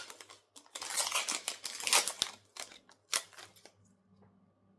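Topps football card pack wrapper being crinkled and torn open, in several bursts of crackling with a few sharp clicks, stopping about three and a half seconds in.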